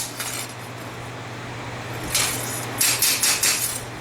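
Hammer tapping a forged steel machete blade on the anvil to straighten it. There is one blow, then one or two more about two seconds in, then a quick run of about five sharp metallic strikes near the end, over a steady low hum.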